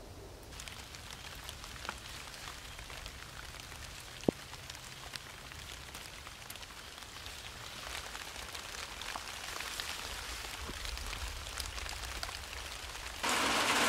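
Light rain pattering on leafy garden plants, with many small scattered drop ticks and one sharper tap about four seconds in. The patter grows a little louder over the second half.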